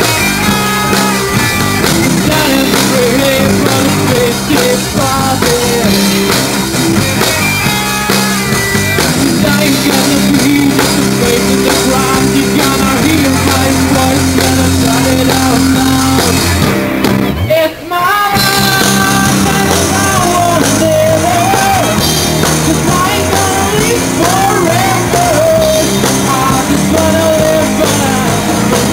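Rock band playing live: singing over electric guitars and a drum kit. About 18 seconds in the music breaks off abruptly and music with a different melody carries on.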